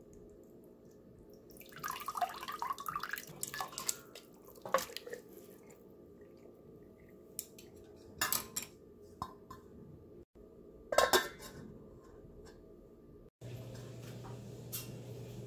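Whole poached chicken handled with wooden chopsticks in a stainless steel pot of liquid: water sloshing and dripping, with sharp clinks against the pot. A steady low hum comes in near the end.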